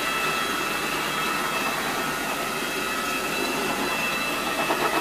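RotoVac rotary carpet-extraction tool running as it is worked over carpet: a steady rushing hiss of vacuum suction with a steady high whine in it, with a few brief louder flickers near the end.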